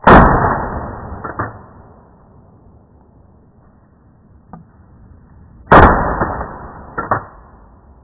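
Two shotgun shots about six seconds apart, each a loud blast dying away over a second or so, with a smaller crack just over a second after each.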